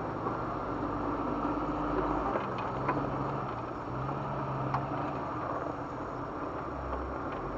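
Jeep Wrangler engine running at crawling speed on a rocky trail. Its low hum steps up and down a little in pitch, and a few sharp clicks and knocks come from rocks and the body.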